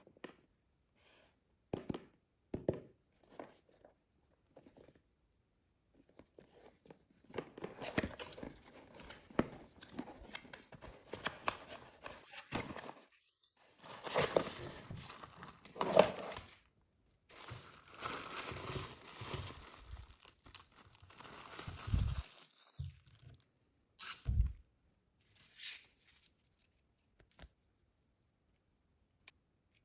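Packaging being torn and crinkled by hand in irregular stretches, with scattered clicks and a couple of dull thumps near the end as pieces are handled and set down.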